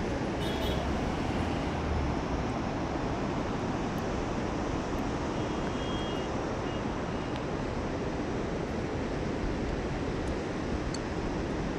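Mountain river rapids rushing over rocks far below, a steady even roar of white water.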